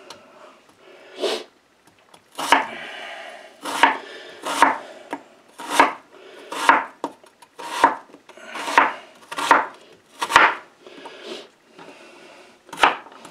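Chef's knife slicing a red onion on a wooden cutting board: each cut crunches through the onion and ends in a knock of the blade on the board, about once a second, with a short pause near the end.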